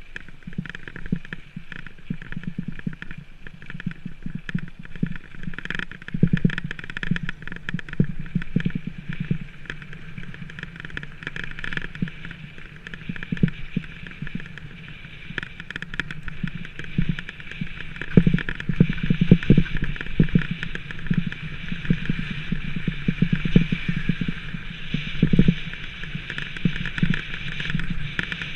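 Rockrider 520S mountain bike rolling fast down a gravel track: a steady rumble with dense, irregular rattles and knocks as it jolts over the stones. The knocks get heavier about two-thirds of the way through.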